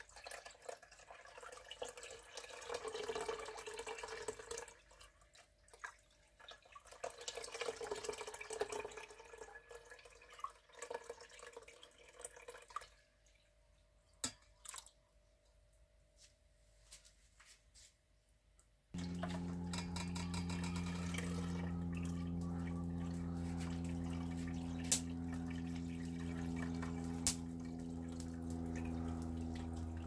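Boiled grape must poured from a saucepan into a cloth-lined strainer, splashing and trickling in two pours, to strain out sediment. About two-thirds of the way in, a steady low hum starts suddenly and continues.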